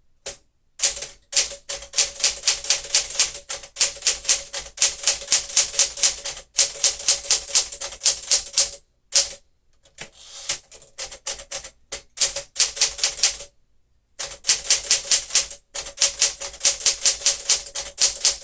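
1964 Smith-Corona Sterling manual typewriter being typed on quickly: type bars strike the platen in fast, even runs of clicks, broken by a few short pauses.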